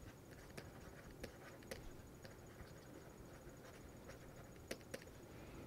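Faint, irregular taps and clicks of a stylus writing on a tablet, over quiet room tone.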